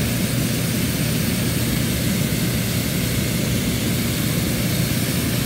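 Petrol-engined inflator fan blowing cold air into a hot-air balloon envelope, running at a loud, steady roar.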